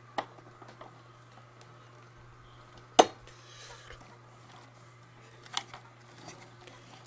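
Scattered light clicks and knocks from the parts of a Hoover Convertible upright vacuum being handled and fitted, with one sharp clack about three seconds in and a smaller one a little before the end, over a faint low hum.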